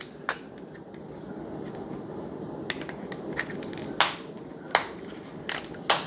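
Hard plastic clicks and rubbing as the detachable arms of a SwitchBot Curtain motor are handled and snapped back onto its body. A handful of sharp clicks, the two loudest about four and nearly five seconds in, over a faint steady rustle.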